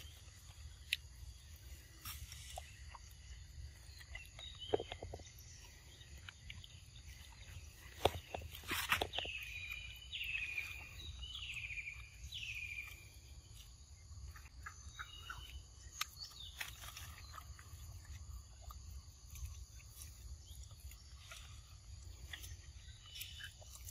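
Quiet outdoor forest ambience with scattered soft clicks, and near the middle a run of about five short, falling calls from an unseen animal, roughly one a second.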